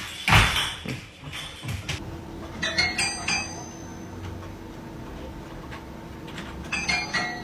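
A knock about half a second in, then two short bursts of clinking with a ringing tone, like glass or dishware being knocked, one about three seconds in and one near the end, over a steady low hum.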